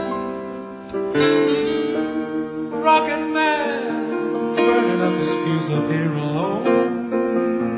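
Jazz combo playing an instrumental passage, with an acoustic-sounding guitar to the fore over the band's sustained chords.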